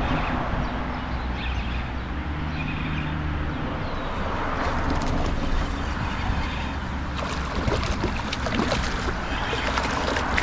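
Steady rushing, gurgling water from a storm-drain pipe running into a pond, with a low rumble underneath. Scattered short crackles come in over the second half.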